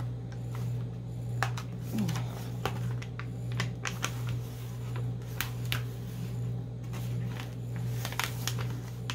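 A white plastic packaging bag being peeled open and handled: scattered crinkles and crackles over a steady low hum.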